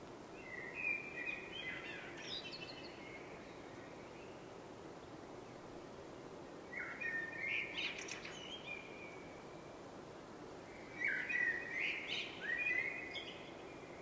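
A bird singing three separate phrases of quick, chirping notes, about four to five seconds apart, over a steady background hiss.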